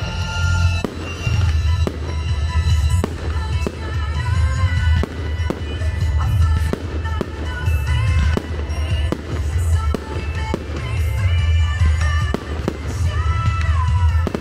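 Fireworks bursting and crackling in quick succession, many sharp bangs, over loud music with a heavy bass beat.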